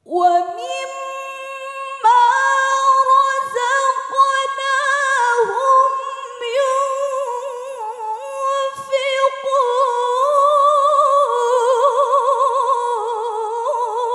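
A woman's solo voice in melodic Qur'an recitation (tilawah), unaccompanied, one long phrase of held, ornamented notes that turns to wide vibrato in its last few seconds.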